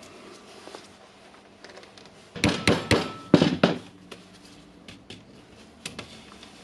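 Parts of a Makita rotary hammer's gear housing being knocked and clicked together while the cover is fitted over the mode-change pin. About two and a half seconds in comes a quick run of five or six sharp knocks over about a second and a half, with lighter clicks of handling before and after.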